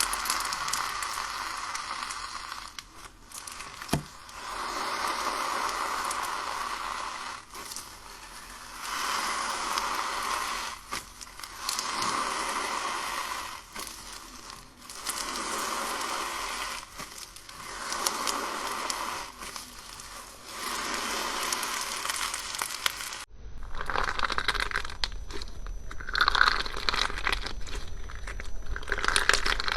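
Crunchy slime being squeezed and pressed, crackling and crinkling in repeated strokes about every two seconds. About 23 s in, it changes abruptly to a sharper, poppier crackle.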